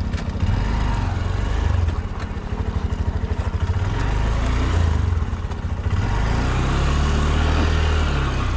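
Honda Shine's 125 cc single-cylinder four-stroke engine running at low revs, with closely spaced firing pulses a couple of seconds in. Engine speed rises briefly near the end and then settles.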